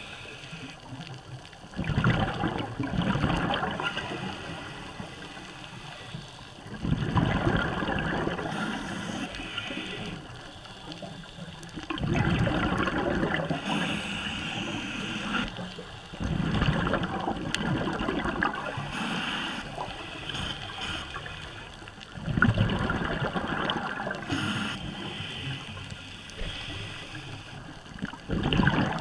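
Scuba diver breathing through a regulator, heard from underwater: six loud bursts of bubbling exhaust, one about every five to six seconds and each lasting a few seconds, with quieter stretches between.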